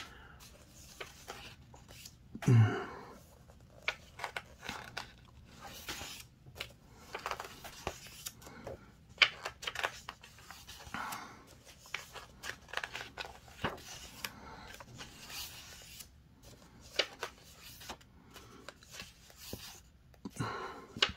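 Pages of a large hardcover book being turned one after another: repeated short paper swishes and rustles as the sheets are lifted and laid flat. A brief, louder vocal sound about two and a half seconds in.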